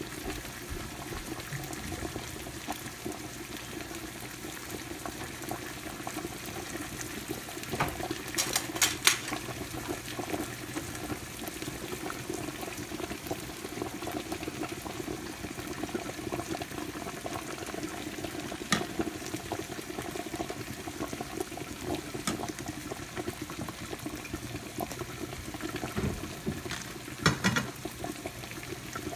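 Cream sauce simmering and bubbling in a skillet on the stove, a steady hiss, as a spoon stirs it and clinks against the pan a few times.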